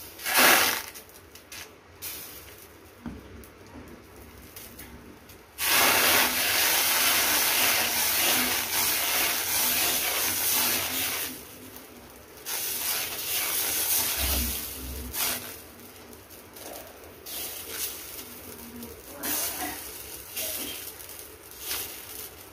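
Dosa batter sizzling and hissing on a hot flat iron tawa as it is poured and spread in circles with a steel ladle. There is a brief burst of hiss at the start, then the hiss starts suddenly about six seconds in and runs in long stretches, with shorter bursts near the end.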